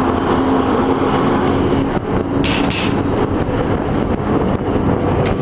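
Diesel locomotive's engine running with a steady drone over the rumble of the moving train, heard from the locomotive's outside walkway. Two short hisses come about two and a half seconds in.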